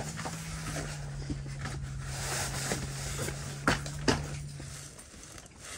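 Fishing gear being handled and set down on the floor mats of an ice-fishing shelter: rustling and two sharp knocks close together, over a steady low hum that stops about five seconds in.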